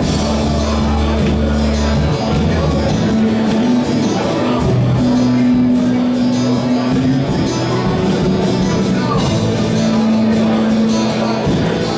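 Live church worship band music with a steady beat and held notes.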